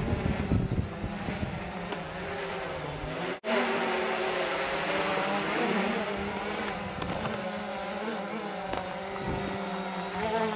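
Quadcopter's electric motors and propellers running in flight, a buzzing set of tones that waver up and down as the motor speeds change. The sound cuts out for an instant about a third of the way in.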